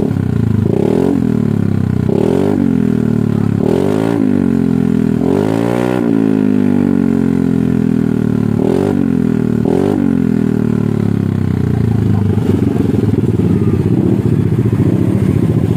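Yamaha Lexi scooter's single-cylinder four-stroke engine, bored up to 155 cc, revved in about six sharp throttle blips through a new stainless full-system racing exhaust, then settling back to idle for the last few seconds. Calm and not tinny low down, it screams when revved.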